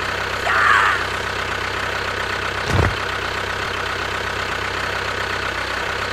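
Tractor engine idling steadily with a fast low knocking rhythm. A brief squeaky voice comes in about half a second in, and a single thump sounds near the three-second mark.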